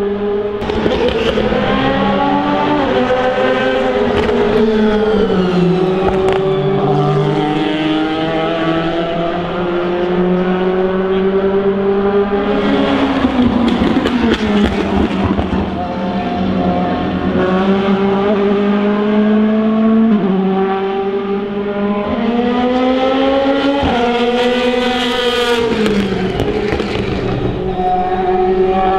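DTM race cars' 4.0-litre V8 engines running loud, their pitch holding steady, then rising and dropping through gear changes. Bursts of sharp exhaust crackle come around the middle and again near the end.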